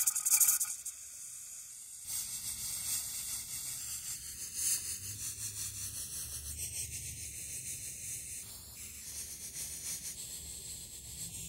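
Pressure canner's weighted gauge rocking on the vent port, letting out steam in loud rapid hissing puffs: the jiggle that signals the canner is at its set pressure. The puffs stop just under a second in, and from about two seconds a three-piece weight hisses and flutters more steadily over a low rumble.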